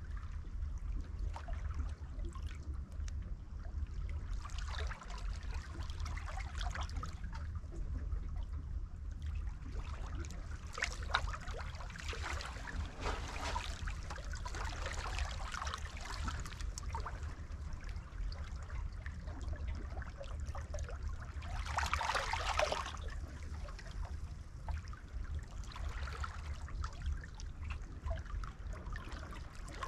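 Estuary water splashing and trickling around hands held in the shallows at the foot of boulders, in irregular spells, with the loudest splash a little past two-thirds of the way through. A steady low rumble runs underneath.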